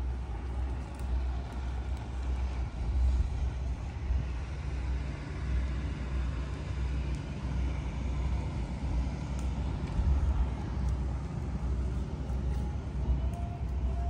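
Low, steady diesel drone of a river towboat pushing a string of barges past, with a steady low engine tone joining about four and a half seconds in.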